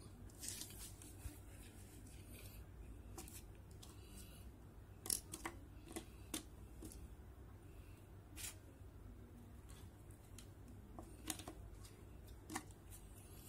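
Scattered light clicks and taps of small plastic phone parts and a small screwdriver being handled against a smartphone's opened frame during disassembly, over a faint steady low hum.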